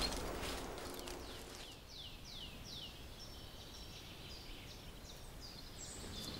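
A songbird singing: a run of high notes, each sliding downward, at about three a second, then a run of shorter, steadier high notes.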